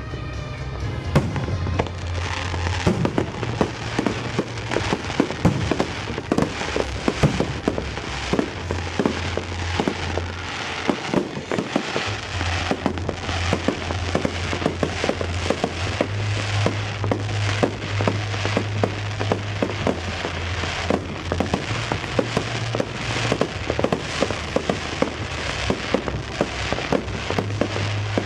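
Fireworks display going off in rapid succession, dense bangs and crackles one after another, over accompanying music with long held bass notes.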